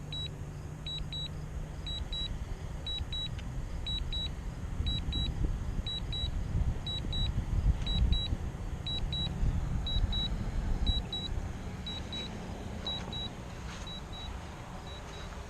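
Drone remote controller beeping in quick double beeps about once a second, its low-battery warning, over a steady low rumble.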